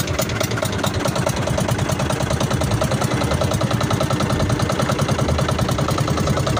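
Small outrigger boat's engine running steadily, a fast even beat of firing strokes with no change in speed.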